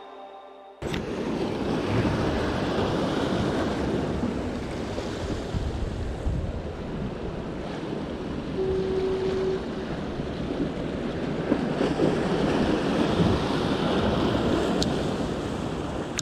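Sea surf washing against the rocks of a breakwater, with wind buffeting the microphone; it cuts in suddenly just under a second in and then runs steadily.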